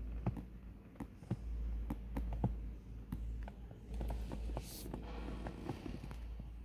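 Handling noise on a handheld phone microphone: a low rumble that comes and goes, with scattered light taps and clicks and a brief rustle a little over four seconds in.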